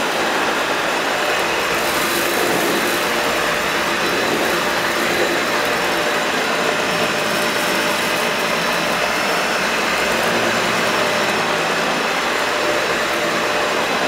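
Dyson Ball Animal upright vacuum cleaner running steadily: an even rushing of airflow with a thin, high motor whine on top.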